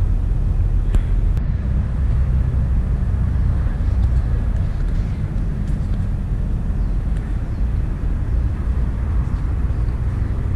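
Steady low rumble of outdoor background noise, with a few faint clicks now and then.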